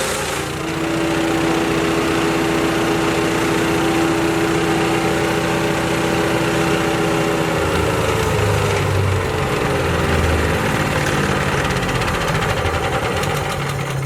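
RX-13 chipper shredder with its 420cc Briggs & Stratton XR2100 petrol engine running flat out with a steady whine. About seven seconds in the pitch sags under load as wood is fed in, with low thuds from the material being chipped.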